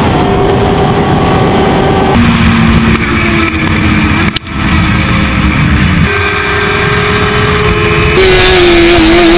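Motorcycles running hard at highway speed, heard from onboard with wind rush. Several short clips are cut together, so the steady engine note jumps to a new pitch at each cut, about four times. The last part is the loudest, with the most wind hiss.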